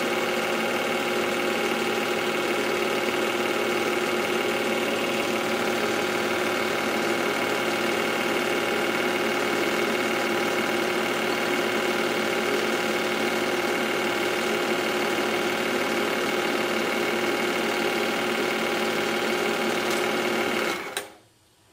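A small motor-driven mechanism whirring steadily at one even pitch, with no rise or fall, until it cuts off abruptly about a second before the end.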